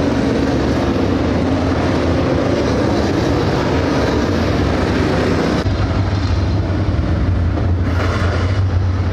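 Dirt late model race cars' GM 602 crate V8 engines running on the track: a loud, steady engine drone of the field. The sound shifts suddenly a little over halfway through, to a heavier, deeper drone.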